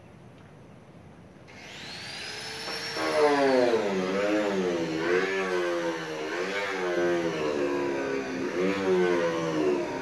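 A motor starts up about a second and a half in and keeps running loudly, its pitch wavering up and down about once a second.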